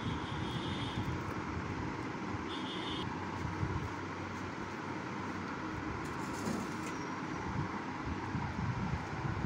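Steady background rumble and hiss with a low hum, with two short faint high tones, one at the start and one about two and a half seconds in.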